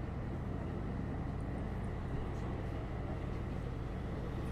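Heritage tram running along its track: a steady low rumble.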